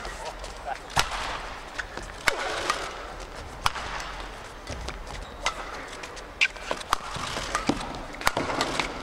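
Badminton rackets striking the shuttlecock back and forth in a fast doubles rally: a string of sharp cracks at uneven spacing, roughly one a second, over crowd noise in a large hall.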